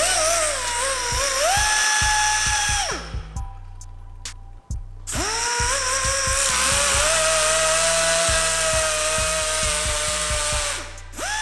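A handheld electric power tool's motor whines in two runs. In the first it dips in pitch, as if loaded in a cut, then rises and cuts off about three seconds in. It starts again a couple of seconds later and runs steadily until shortly before the end.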